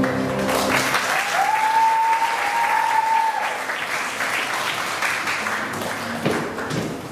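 Audience applauding as the music stops about a second in. A single long high note rises and holds for about two seconds over the clapping, and the applause dies away toward the end.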